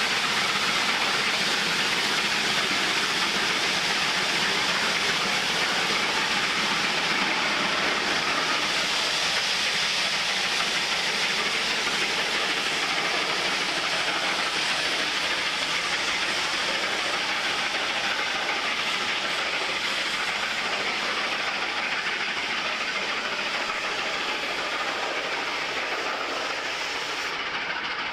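Cass Scenic Railroad's Shay geared steam locomotive #2 and its train running by, a steady hiss of steam mixed with wheel noise on the rails, slowly getting quieter.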